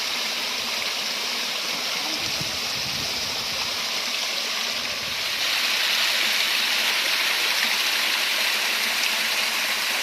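Water from a homemade garden waterfall splashing and flowing steadily over rocks, growing louder about halfway through.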